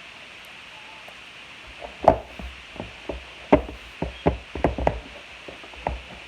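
A series of irregular knocks and taps, starting about two seconds in and coming every half second or so.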